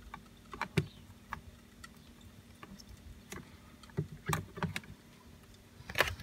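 Light, irregular clicks and taps of metal multimeter probe tips touching and scraping the screw terminals of a plastic connector strip, with a louder knock near the end.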